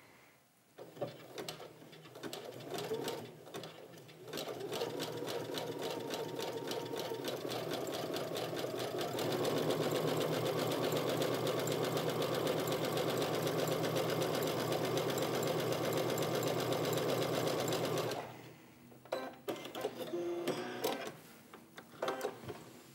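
Brother domestic sewing machine stitching a twin-needle zigzag seam. It starts slowly in short hesitant runs, settles into a steady stitching rhythm, speeds up and gets louder partway through, then stops abruptly, followed by a few faint handling clicks.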